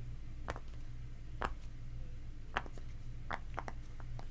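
Silicone pop-it fidget toy bubbles being pressed through, giving short soft pops at irregular spacing, about seven in a row.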